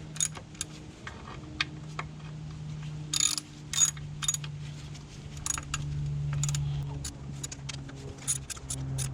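A wrench clicking and clacking in short irregular runs on metal as two bolts on a Ducati 1098S's single-sided swingarm are tightened to lock the chain adjustment, with a few louder clacks about three to four seconds in. A steady low hum runs underneath.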